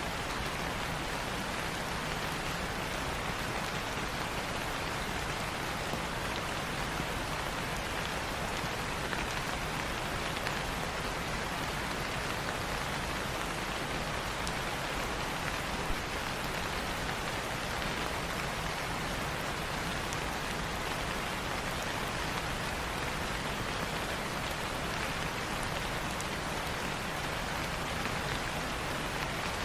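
Light rain falling steadily, an even patter of raindrops on a surface.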